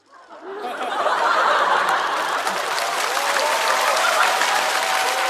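Studio audience laughing and applauding, swelling up within about a second and then holding steady.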